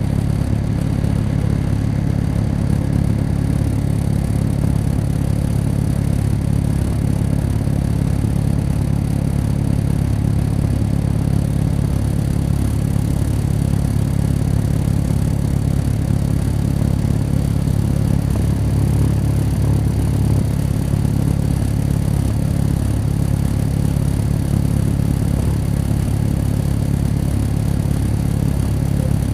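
Caterpillar C13 ACERT inline-six diesel of an MCI D4500CL coach, heard from inside the passenger cabin, running at a steady engine speed with a low, even drone.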